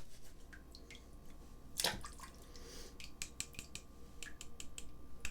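Faint, irregular small clicks and taps of shaving gear being handled, with one louder knock about two seconds in.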